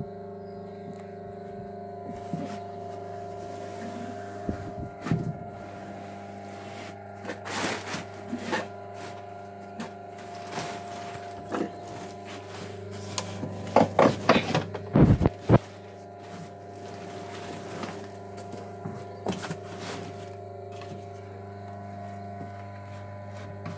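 Ratcliffe and Sons electric pottery wheel motor running with a steady hum. Irregular knocks and clatters come over it, with a loud cluster of them about midway.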